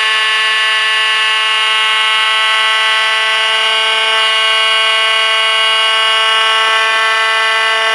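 Dremel-like high-speed rotary tool on a lathe, running with a loud, steady high-pitched whine while its small end mill cuts the thread undercut in a brass workpiece.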